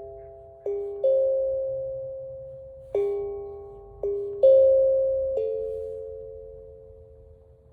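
Steel tongue drum (a Panda drum) played in slow single notes, about six strikes, each ringing on and slowly dying away. The last note fades out near the end.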